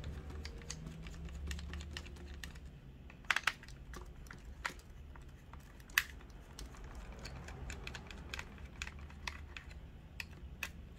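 Small Phillips screwdriver backing screws out of a DJI Mini 2 drone's plastic shell, with fingers handling the shell: scattered light clicks and ticks, a few sharper clicks a little over three seconds in and about six seconds in.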